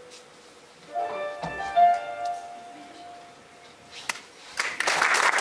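A few closing piano notes struck about a second in, ringing out and fading away, then audience applause breaking out near the end.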